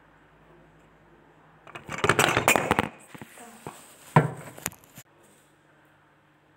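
Handling noise from a phone being picked up and repositioned: a burst of rubbing and knocking on the microphone lasting about a second, then a few sharp knocks, the loudest about four seconds in.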